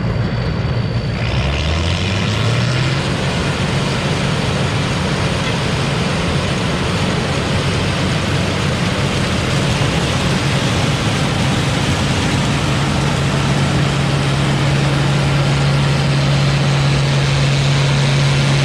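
A combine harvester's diesel engine revs up about a second in, as a broad rush of machinery noise comes in, then runs steady at high speed. It has a good sound to it.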